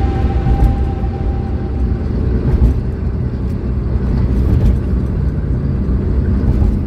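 A car driving at speed, heard from inside: steady road and engine rumble. A held musical tone fades out about two seconds in.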